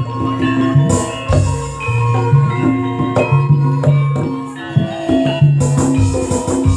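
Live campursari music: a steady beat with a repeating bass line, pitched melodic notes and hand percussion.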